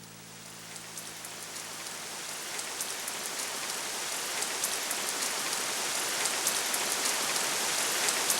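Rain falling steadily with individual drops ticking, fading in and growing louder.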